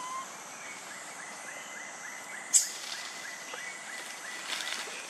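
Outdoor background noise with a thin chirping call repeating about four times a second, one sharp click about halfway through, and a few brief crackles near the end.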